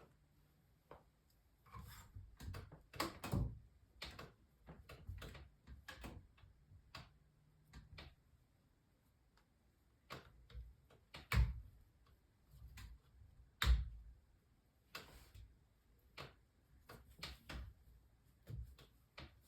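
Scattered, irregular clicks and knocks, with two louder thumps a couple of seconds apart just past the middle.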